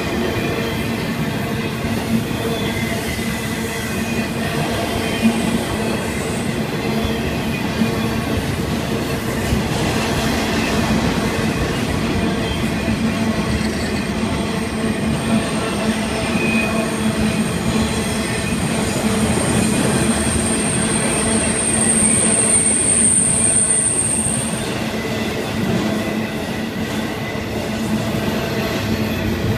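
Florida East Coast Railway intermodal freight cars rolling past at speed, a steady rumble with occasional clicks from the wheels. About halfway through, a thin high wheel squeal rises in, is strongest for a few seconds, then cuts off.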